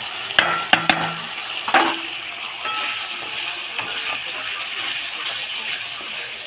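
Potatoes, tomato and fresh ginger, cumin and green-chilli paste sizzling in hot oil in a metal kadai while being stirred with a wooden spatula, the spice paste being sautéed. A few sharp metallic knocks and clinks sound in the first two seconds, then a steady sizzle.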